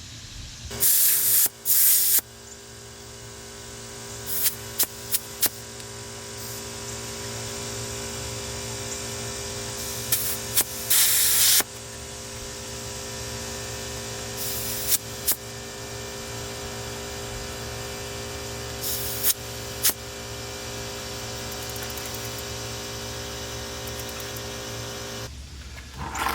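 Electric air compressor or inflator running steadily while inflating a bicycle inner tube, with several short loud hisses of air. The motor starts about a second in and stops shortly before the end.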